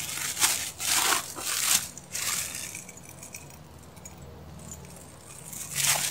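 Crinkly plastic bag being handled and shaken, in a run of rustling bursts over the first two seconds, quieter in the middle, and louder again near the end.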